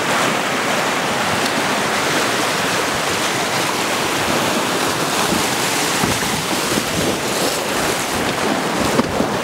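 Whitewater rapids rushing and churning around an inflatable raft: a steady rush of water.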